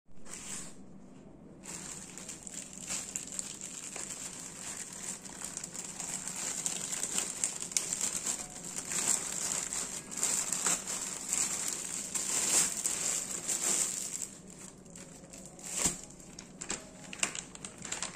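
Plastic courier mailer bag being opened and the plastic packaging inside crinkled and rustled by hand, a dense run of small crackles, busiest in the middle and thinning out after about fourteen seconds.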